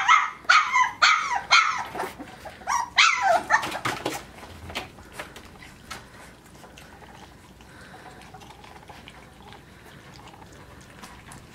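Australian Shepherd puppy giving several high, falling yelps over the first few seconds. Then faint, quick clicking of puppies lapping puppy mush from a metal pan.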